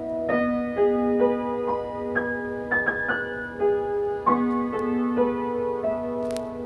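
Piano music: a slow melody of single notes changing about every half second over a held low note, which is struck again about a third of the way through.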